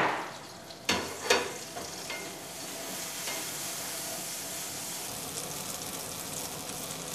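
Pieces of dog vomit slime mold (Fuligo septica) sizzling steadily as they fry in olive oil in a pan. Three sharp knocks at the pan come in the first second and a half.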